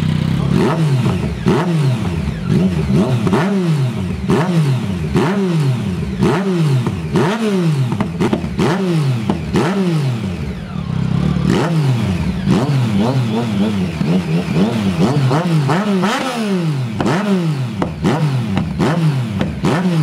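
Superbike engine revved over and over, each blip a quick rise and fall in pitch, about one a second.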